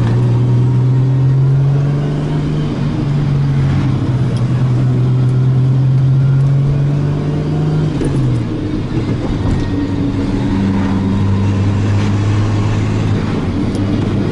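Turbocharged car's engine running at a steady cruise, heard from inside the cabin. About eight seconds in the engine note drops as the revs fall, then holds steady at a lower pitch.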